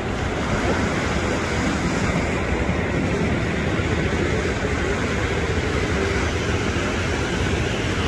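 Sea surf breaking and washing up the beach, a steady rushing noise with a strong low rumble underneath.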